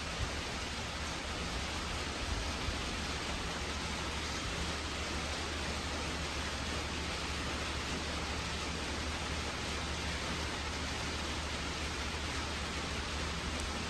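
Steady background hiss with a low hum underneath, and a few faint clicks in the first three seconds.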